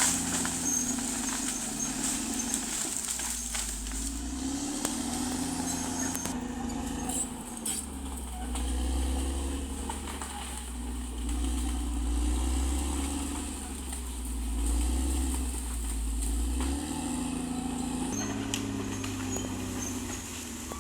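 Caterpillar D6R XL bulldozer's diesel engine running under changing load, its pitch rising and falling every second or two, with a few sharp clanks.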